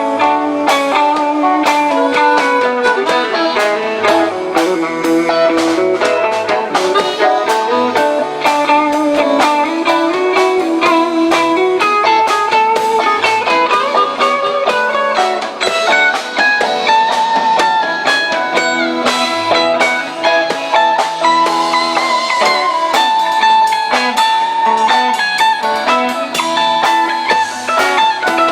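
A live rock band playing an instrumental passage, with electric guitar to the fore playing moving melodic lines over the band.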